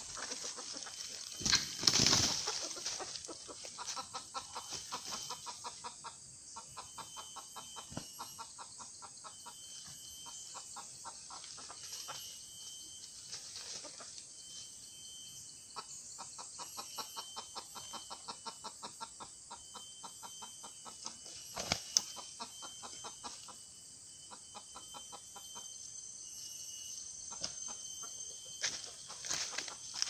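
Red junglefowl rooster flapping its wings hard in a trap about two seconds in, then fluttering and scuffling in dry leaf litter on and off as it struggles.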